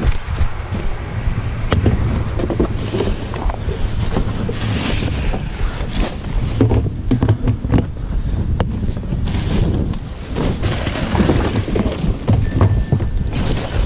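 Garbage collector handling a plastic trash can: the lid knocking as it is opened, then a plastic garbage bag rustling loudly in several swishes as it is pulled out of the can. Wind buffets a chest-mounted camera microphone underneath.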